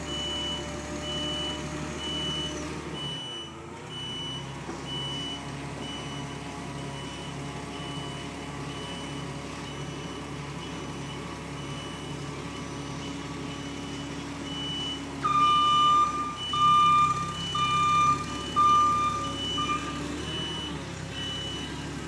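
Vehicle engine running steadily while a back-up alarm beeps over and over at an even pace. About three-quarters of the way in, a louder, lower beep sounds four times.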